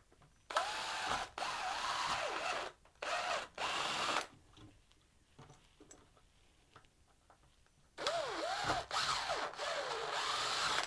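Cordless drill running a step bit through the bottom of a plastic bucket, drilling two holes. Each hole takes a few short trigger bursts, and the motor whine rises and falls in pitch as the bit cuts.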